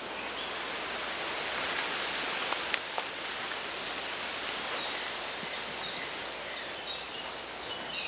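Wind blowing through leafy trees, a rustling that swells and then eases, while a small bird repeats short high notes about twice a second. Two light clicks about three seconds in.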